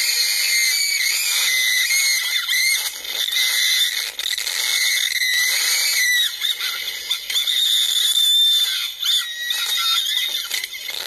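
Three women screaming on a reverse bungee ball ride as it flings and spins them: high, gliding shrieks one after another over a steady rush of noise.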